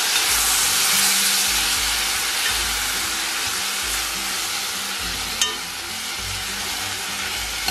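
Sliced radish, tomato and freshly added tamarind juice sizzling in a hot nonstick kadai as a steel ladle stirs them. The sizzle is strongest at the start and eases slowly, with a single sharp clink of the ladle against the pan about five seconds in.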